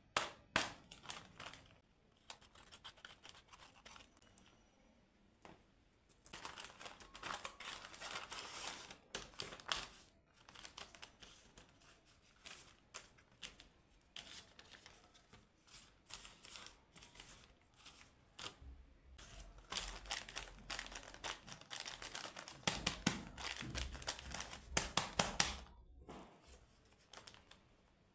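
Small paper craft packets rustling and crinkling as hands handle and shuffle them, coming and going in irregular spells.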